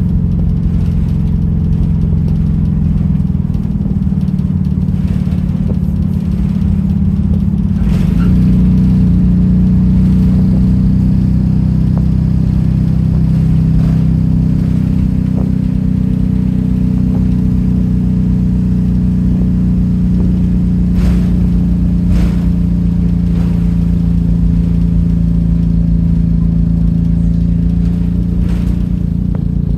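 Rear-mounted engine of a Stagecoach London bus heard from inside the passenger saloon, running loud with a steady drone. About eight seconds in it climbs in pitch as the bus picks up speed, then holds steady, with a few short knocks and rattles from the cabin.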